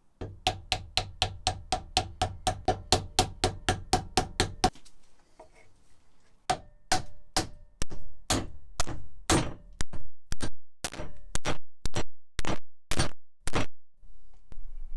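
Hammer blows fitting a new wooden handle into a hammer head: a fast, even run of light taps, about five a second, drives a wooden wedge into the handle's end. After a short pause come about fifteen louder blows, roughly two a second, on a wooden block held on the handle end, seating the head.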